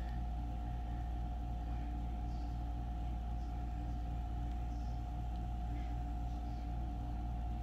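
A steady low hum with a constant tone above it, from an unseen running machine or appliance. Now and then a faint soft scrape as a wooden skewer pushes melted soap out of a plastic cup into a silicone mould.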